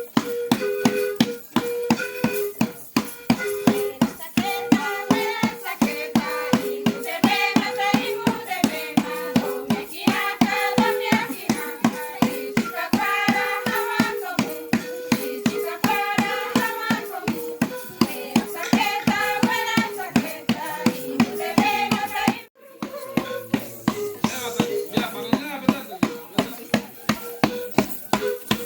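Background music with a steady, fast beat and a melody over it; it breaks off briefly about three quarters of the way through and starts again.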